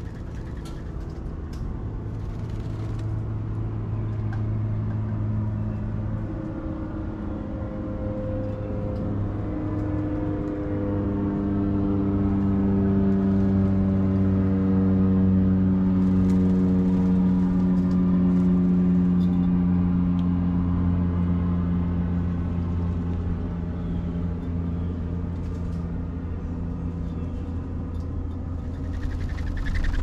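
A passing engine drone that swells to its loudest about halfway through and then fades, its pitch falling slowly the whole time.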